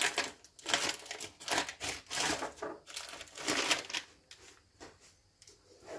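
Crinkly plastic rustling and light clicking as small workbench items are handled and rummaged through, in short irregular bursts that die away after about four seconds.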